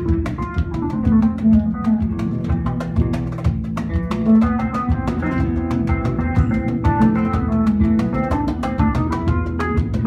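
Live band playing an instrumental piece: an oud and violin carry the melody over guitars, keyboard and a drum kit keeping a busy, steady beat.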